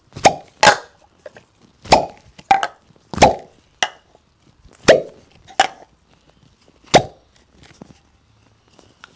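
Bamboo cupping cups being pulled off the skin one after another, each suction seal breaking with a sharp pop: about nine pops at uneven intervals over the first seven seconds.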